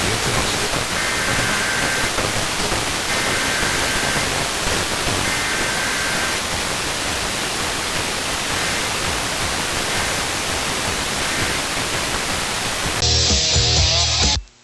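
Loud, steady radio static hiss from a weakly received Emergency Alert System broadcast. Buried in it during the first seconds are three faint warbling EAS header data bursts, each about a second long and about a second apart. Near the end the hiss gives way to a brief harsher, buzzier sound that cuts off suddenly.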